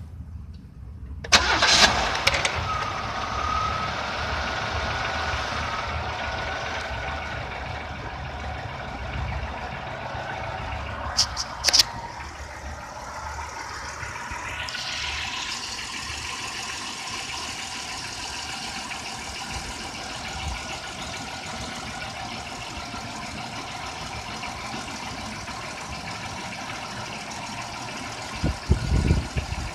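A 3100 V6 in a 1997 Oldsmobile Cutlass Supreme is started about a second in, then settles into a steady idle carrying the noise that the owner wonders is piston slap. A few loud low thumps come near the end.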